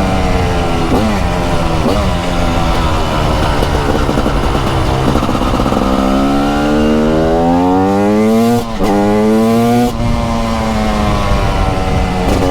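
TM SMR 300 supermoto's 300cc two-stroke single-cylinder engine, ridden hard with raw exhaust sound. Its revs drop twice in quick steps, then sink slowly off the throttle. About halfway through it pulls hard, revs climbing steeply, cut briefly for an upshift and climbing again before dropping near the end.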